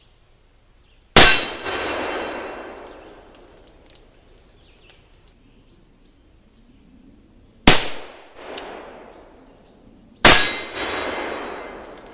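Three shots from black-powder cap-and-ball revolvers, a .44 Colt 1847 Walker and a .31 Remington Pocket, about a second in, near the two-thirds mark and near the end. Each shot is sharp and loud and trails off in a long echo.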